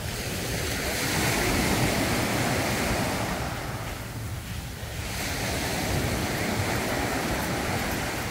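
Small ocean waves breaking and washing up a sandy beach, the surf swelling about a second in, easing off, then swelling again. Wind buffets the microphone underneath.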